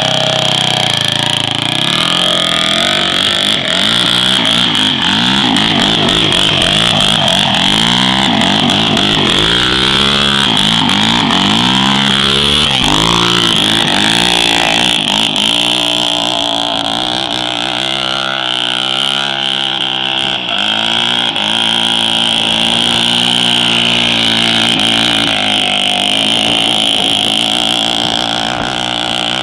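Honda TRX450R quad's single-cylinder four-stroke engine revving up and down again and again as it is ridden hard, its pitch rising and falling in quick sweeps, over a steady high hiss.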